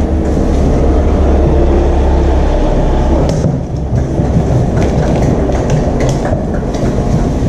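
Scissors cutting through the packing tape and cardboard of a box lid, a run of short crisp snips from about three seconds in. Before that, a steady low rumble.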